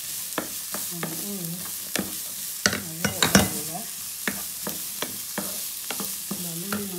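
Wooden spatula stirring diced carrots, peas, green beans and onion in a non-stick frying pan, the vegetables sizzling steadily as they sauté. The spatula clicks and scrapes against the pan throughout, loudest about three seconds in.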